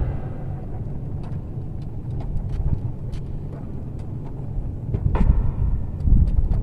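Small clicks and taps of hands working a jumper wire into the terminal of a plastic wall socket, with a louder bout of handling noise about five seconds in, over a steady low rumble.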